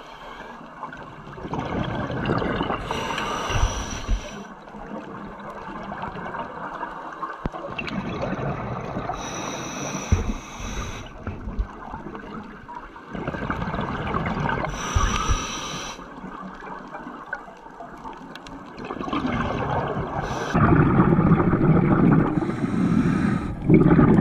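Scuba regulator breathing heard underwater: four short hissing inhalations about six seconds apart, with bubbling, gurgling exhalations between them.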